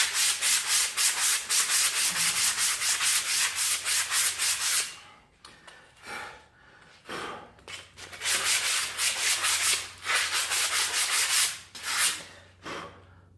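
Hand sanding with coarse abrasive: quick back-and-forth scraping strokes at about four a second, in two long runs with a short pause between them.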